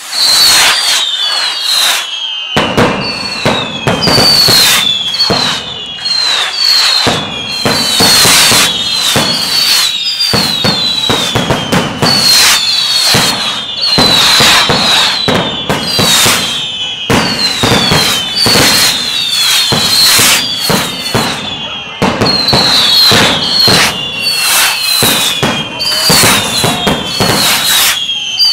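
A dense barrage of fireworks: rapid firecracker bangs and crackling, overlapping with many whistling fireworks, each whistle falling in pitch. It starts abruptly and goes on without a break.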